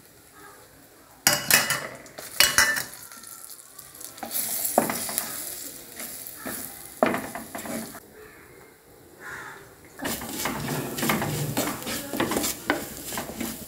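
Wooden spatula scraping and stirring spice masala sizzling in oil in an unglazed clay pot. The strokes start a little over a second in and come thick and fast in the last few seconds.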